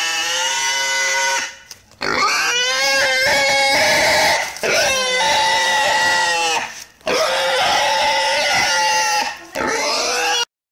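A wild boar squealing in distress while being handled: about five loud, long squeals one after another with short breaks between.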